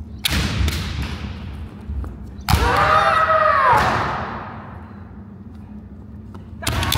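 Kendo sparring: sharp cracks of bamboo shinai strikes and stamping footwork on a wooden floor, with a long drawn-out kiai shout about two and a half seconds in and another starting near the end, echoing in a large gymnasium.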